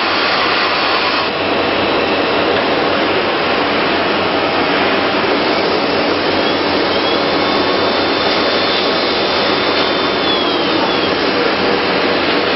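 Biesse Rover 23 CNC machining centre running with its dust extraction: a steady, loud rushing noise. A faint high whine comes in and fades out again near the middle.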